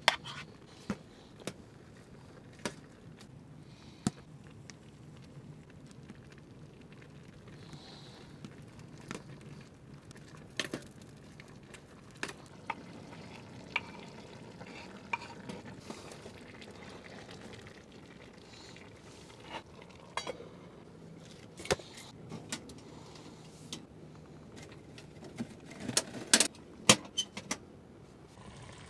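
Chopped vegetables sizzling faintly in a steel pot on a wood-burning stove, with scattered clinks and taps of a spoon on a bowl and a knife scraping food off a wooden cutting board into the pot. Near the end comes a cluster of louder metal clanks of the pot lid and the stove's wire rack.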